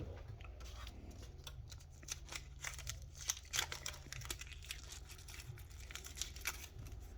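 Irregular small clicks and crinkling from gloved hands handling the phone and repair tools, over a faint low steady hum.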